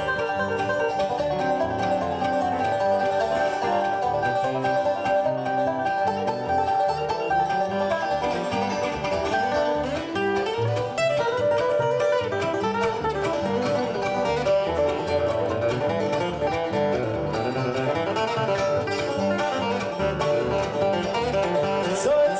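Bluegrass band playing an instrumental passage: banjo picking with acoustic guitar, mandolin and upright bass.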